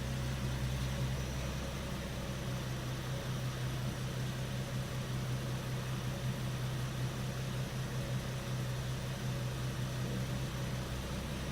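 2013 Infiniti G37's 3.7-litre V6 idling steadily: a low, even hum.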